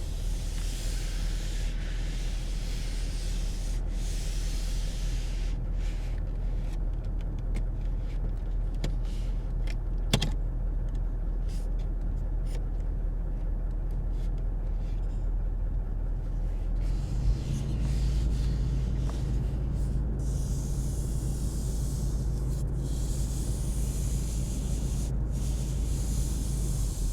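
Lexus LX450d's twin-turbo V8 diesel running with a steady low rumble and hum, the drone growing louder about two-thirds of the way through. A single sharp click sounds about ten seconds in.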